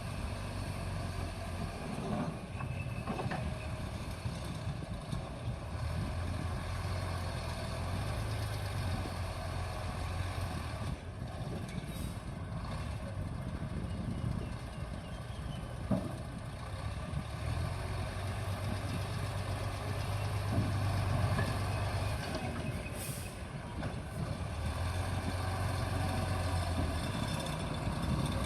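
Bulldozer's diesel engine running under load, its low drone swelling and easing as the machine works. A single sharp knock comes about sixteen seconds in.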